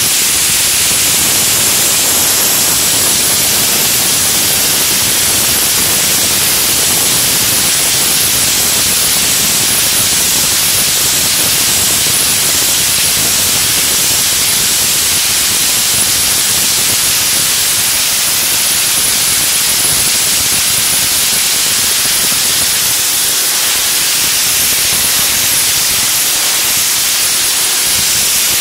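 Vapor blaster nozzle firing a wet abrasive slurry jet onto a metal tabletop: a loud, steady hiss with a thin, high whine on top.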